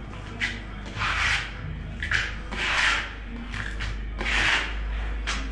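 Steel tile trowel scraping ready-mixed tile adhesive across a concrete wall, in about six separate spreading strokes.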